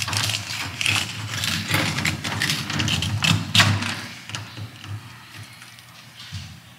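Fillet knife cutting a kokanee salmon along its backbone: a run of short scraping, crunching strokes as the blade works along the bones, easing off into quieter handling of the fish and fillet over the last few seconds. A steady low hum sits underneath.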